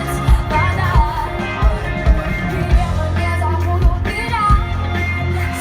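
Pop song played by a live band: a sung or vocalised melody over a steady kick-drum beat, about one stroke every 0.6 s, and a held bass line.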